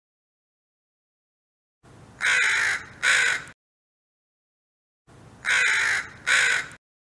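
Crow cawing: two pairs of caws, the second pair an almost exact repeat of the first about three seconds later, with silence before and between.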